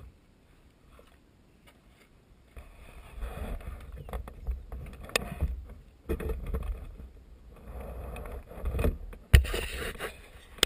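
Handling noise from a camera being moved about: after a couple of quiet seconds, rubbing and scraping against the microphone with low rumbles and a few sharp knocks, the loudest about nine seconds in.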